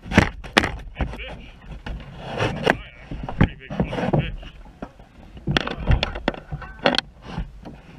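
Irregular knocks and scrapes as a landing net and fishing rod are handled against a kayak, over wind rumbling on the microphone.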